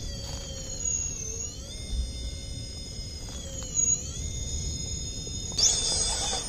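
RC rock crawler's electric motor and speed controller whining at crawling speed: a high-pitched whine of several steady tones that dips in pitch and recovers twice as the throttle changes. Near the end a louder, rougher rush comes in as the truck climbs.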